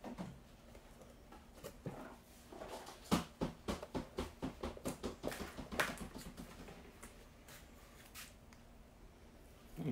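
Sheets of cardstock being handled and lined up on a paper trimmer: scattered light taps and clicks, with a quick run of sharper clicks in the middle.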